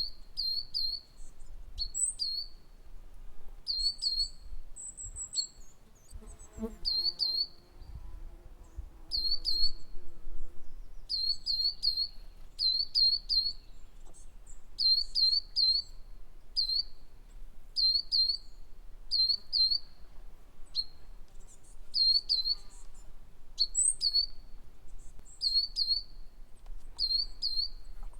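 Small songbirds chirping: short high notes repeated every second or so, often in quick pairs. A brief lower call comes about a quarter of the way in.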